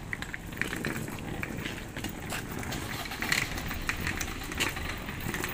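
Wheeled trolley suitcase rolling over rough paving, with a steady rattling rumble and scattered clicks and knocks.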